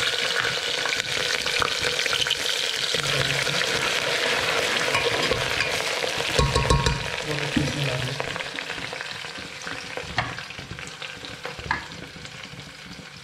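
Green chillies, ginger and garlic sizzling in hot ghee in a pressure cooker as they are stirred, with a few knocks of the spoon about halfway through. The sizzle is loudest in the first half and dies down toward the end.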